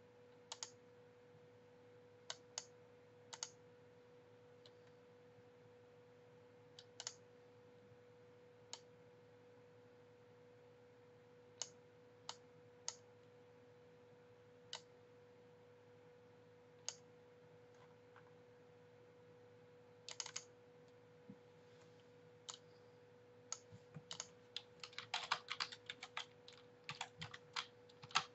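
Scattered single clicks of a computer mouse and keys, then a quick run of keyboard keystrokes near the end as characters are typed in. A faint steady electrical hum runs underneath.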